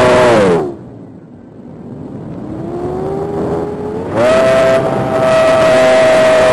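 Electric motor and five-blade propeller of an RC Spitfire heard from an onboard camera, running with a steady high whine. Just under a second in, the whine drops sharply in pitch and fades to a low hush. It comes back as a slowly rising softer tone, then jumps back to the full steady whine about four seconds in.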